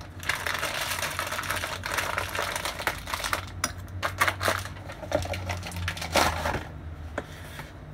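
Thin plastic bag crinkling and rustling as it is shaken and squeezed by hand. Dense crackling through the first three seconds, then in short spurts, dying down after about six and a half seconds.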